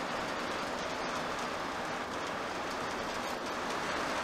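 Steady road noise inside a camping car's cab driving on the motorway: an even rush of tyre and engine noise.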